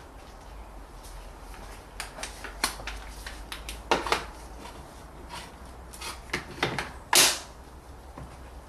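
Spring clips on a plastic air filter housing being worked open by hand: a run of irregular clicks and knocks of plastic and metal, with the loudest clack a little after seven seconds.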